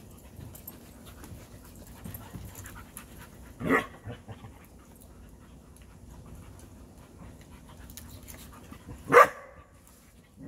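A dog barking twice, two short single barks about five and a half seconds apart, the second louder.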